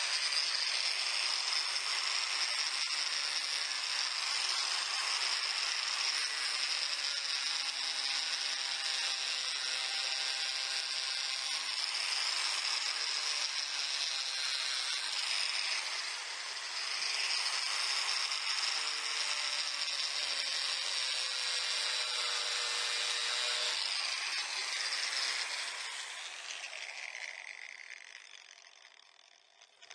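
Angle grinder with a steel cutting disc cutting through stainless steel chain: a loud, steady high whine with grinding noise, easing briefly about halfway through. The long cut reflects how hard the stainless chain is. Near the end the grinder is switched off and spins down.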